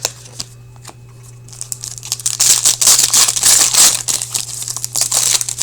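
Upper Deck hockey card pack's foil wrapper being torn open and crinkled: a few light clicks, then about four seconds of dense crackling rustle.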